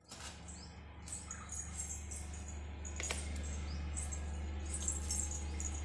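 Small birds chirping and twittering, with short rising and falling notes, over a steady low rumble. One sharp click about halfway through.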